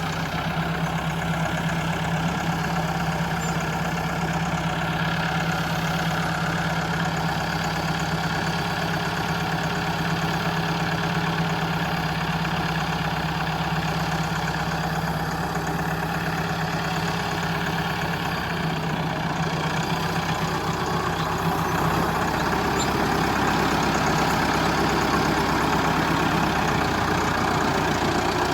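Tractor-type engine running steadily at idle, with a slight change in tone about twenty seconds in.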